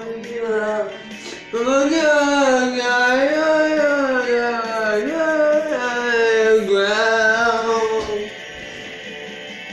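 Pop-rock song with a voice singing long held, wordless notes that glide up and down over a guitar backing. About eight seconds in, the voice stops and the backing carries on more quietly.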